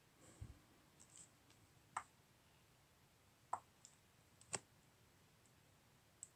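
Near silence broken by a handful of faint, irregular clicks, with one soft low thump about half a second in.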